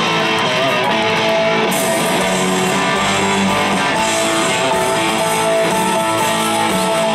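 Live rock band playing, with electric guitar to the fore over the rest of the band.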